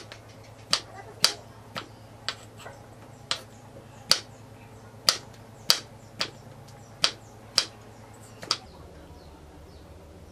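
Kitchen knife slicing through a cucumber and tapping the wooden cutting board: about a dozen sharp knocks, one every half second to a second, stopping near the end.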